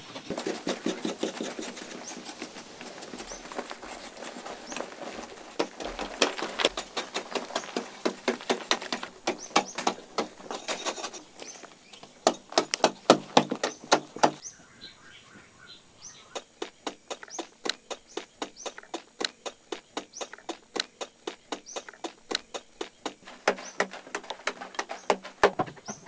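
Hand digging tools chopping into hard-packed clay earth: a steady series of dull strikes, a few a second, sometimes overlapping as two diggers work at once.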